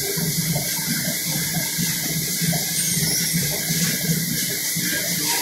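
Forklift with a paper-roll clamp running as it lowers a kraft paper reel onto a stack: a steady hiss over an uneven low hum.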